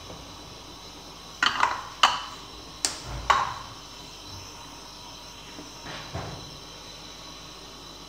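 A handful of sharp clinks and knocks as a utensil or container strikes a clay cooking pot while ingredients are tipped into it. Four come in quick succession in the first few seconds, then a softer one.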